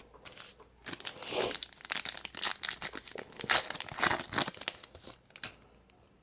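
Plastic wrapper of a baseball card pack being torn open and crinkled in the hands, a dense run of crackling for about four and a half seconds.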